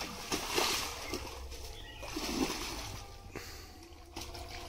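Shallow pond water splashing and sloshing around a person's legs as they wade through it, loudest in the first second.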